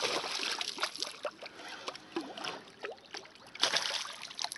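A hooked pike thrashing and splashing at the surface of the water, in quick irregular splashes, with a louder burst of splashing near the end.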